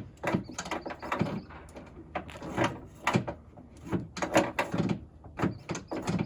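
A wrench working on the door handle's 7/16 nuts inside a steel door shell, making irregular metallic clicks and knocks, several a second.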